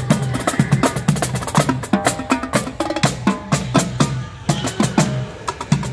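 Marching drum line of two snare drums and a set of tenor drums playing a fast, dense cadence of rapid sticking.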